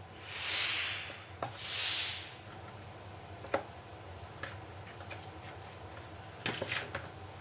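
Wet squelching and swishing of hands rubbing a herb-and-spice marinade into whole fish in a plastic bowl. There are two longer swishes in the first two seconds, then a few light taps and clicks.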